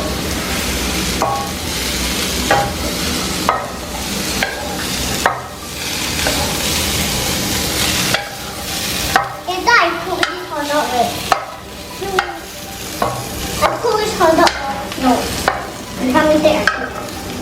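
Hot dogs sizzling in a hot frying pan while a utensil stirs them, scraping and tapping against the pan. The sizzle is a steady hiss that thins out about halfway through, as the hot dogs near done.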